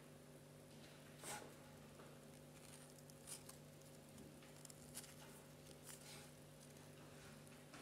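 Near silence over a steady low hum, with a few faint, brief rustles as fingers handle a wire-edged tulle petal and draw needle and thread through it.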